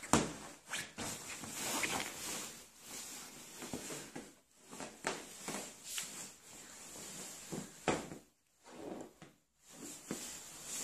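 A dog digging and pawing at a fabric dog bed: irregular scratching, scraping and rustling, broken by a few short pauses.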